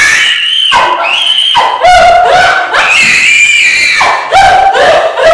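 A woman screaming: about five long, high-pitched cries in a row, each held and sliding in pitch.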